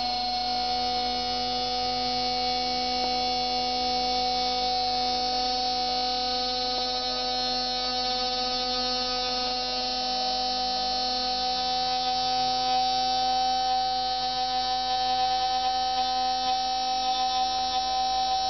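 Universal-3 hobby lathe running: an even electric-motor hum with a whine of many overtones, its loudness wavering slightly in the last few seconds.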